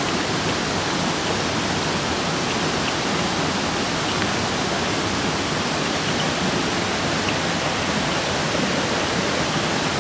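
Steady rush of flowing water in a spring-fed bathing pool.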